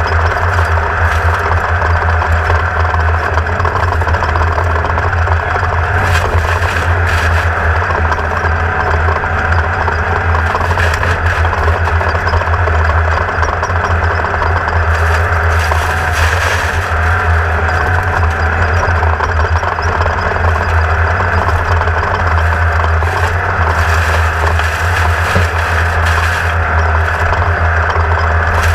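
Onboard sound of a 1600-class off-road race buggy's air-cooled VW engine running hard at a steady speed, with the chassis rattling and a few jolts over rough ground.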